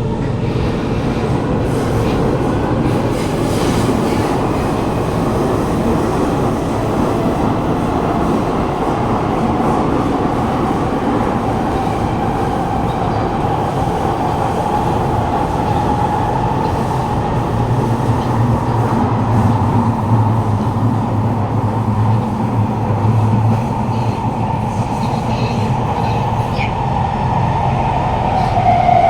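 Steady running noise inside a Kawasaki Heavy Industries C151 metro carriage: wheels on the rail with loud air-conditioning and ventilation fans, and a steady whine that grows louder in the middle. The filmed car's own traction motor is silent because of a motor fault, so the motor sound comes from the adjoining car.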